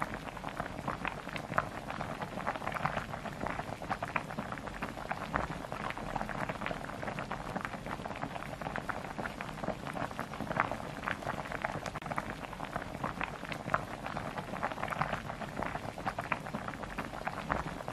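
Pork belly and neck sizzling on a hot grill plate: a steady, dense crackle of spitting fat.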